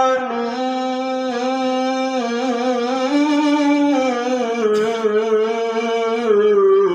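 A man reciting the Quran in melodic style, drawing out one long, sustained phrase whose pitch rises and falls slightly, breaking off at the end.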